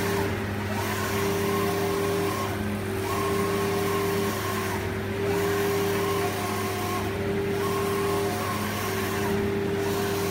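Digital belt textile printer running: the print carriage shuttles back and forth with a steady motor whine over a constant fan-like hiss. The sound breaks briefly about every two seconds as the carriage reverses at the end of each pass.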